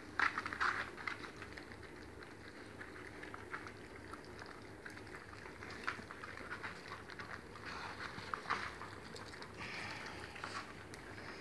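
A litter of kelpie puppies eating wet oats and mince from a plastic tray: a busy crackle of lapping, chewing and small clicks, loudest about a second in.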